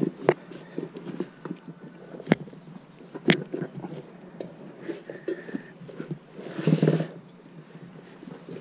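Dirt-bike tire being worked onto its spoked rim by hand: rubber scuffing and rubbing against the rim, with three sharp knocks in the first half and a louder scuffing burst near seven seconds.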